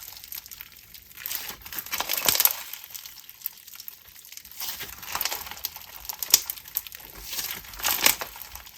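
Clear sugar-scrub slime with beads being squished and worked by hand. It crunches and crackles in repeated clusters of small crackles.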